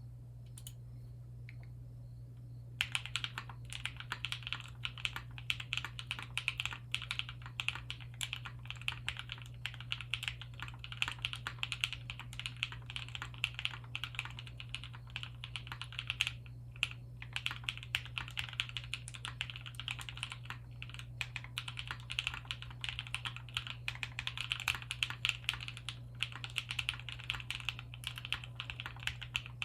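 Fast, continuous typing on a custom HHKB-layout mechanical keyboard, the Monokei x Bisoromi Kei, built with an aluminium half plate, Cow switches lubed with Krytox 205g0 and filmed, and GMK keycaps. The keystrokes start about three seconds in, with a short pause about halfway through, over a steady low hum.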